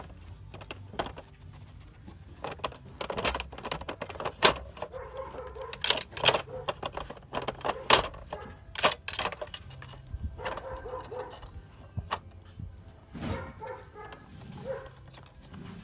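Plastic parts of a dog puzzle toy clicking and clattering as a small dog noses and paws at it: an irregular string of sharp clicks and knocks, busiest and loudest through the middle.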